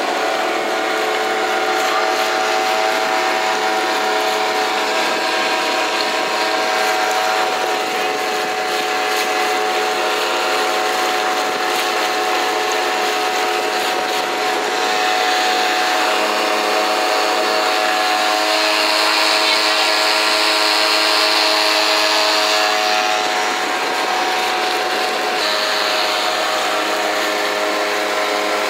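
Small outboard motor running at a steady pitch, driving the boat along under way, with wind and water rushing past.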